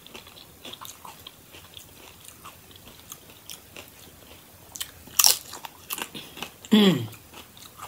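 Crunching and chewing of tortilla chips dipped in salsa: a string of small crisp crunches, with one louder crunch about five seconds in. A short low hum of the voice, falling in pitch, near the end.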